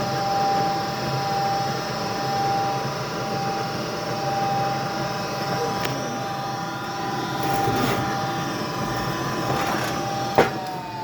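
A gas furnace's fan motor runs with a steady hum and a constant whine, with a sharp click near the end. The furnace is showing a three-flash fault code for a pressure switch that stays open.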